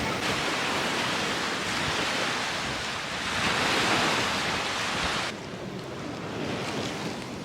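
Sea waves washing on the shore with wind noise on the microphone; the surf swells around the middle, then the sound drops suddenly to a quieter level a little after five seconds.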